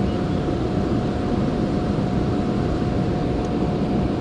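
Steady roar of water rushing through a dam, even and unbroken, with a faint steady hum above it.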